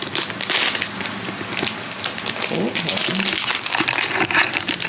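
Thin plastic packaging bag crinkling and crackling in irregular bursts as it is handled and opened.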